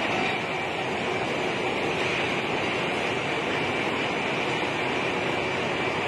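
Steady mechanical din of a hot steel rolling mill running, as red-hot bars pass through the roll stands, with a faint steady high whine.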